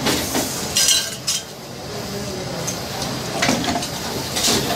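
Sheet-metal door-clamp pieces clinking and clanking as they are handled at a hand-operated screw press, with several sharp metallic clinks, the loudest about a second in.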